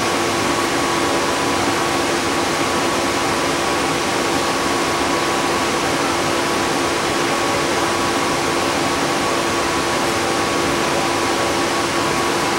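Interior noise of a city transit bus heard from the rear seats: an even, steady hiss with a constant hum that holds one pitch throughout.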